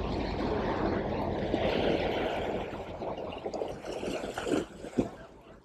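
Sea water washing and splashing against the rocks of a jetty, loudest for the first two or three seconds and then easing off. A couple of short sharp knocks come near the end.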